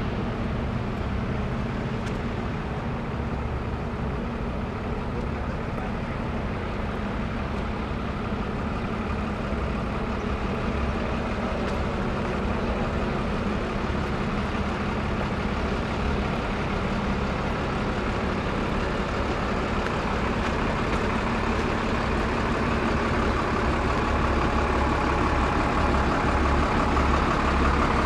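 Heavy truck engine running with a steady low hum, getting louder toward the end.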